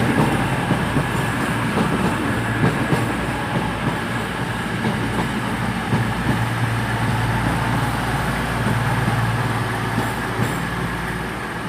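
Cross Country class 220 Voyager diesel multiple unit running into the platform. Its engines give a steady low hum over the rolling noise, with a few faint clicks.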